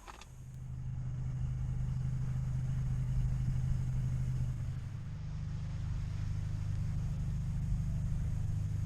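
Car engine and road noise, a steady low hum that grows louder over the first second as the vehicle gets going; about five seconds in its pitch steps up slightly.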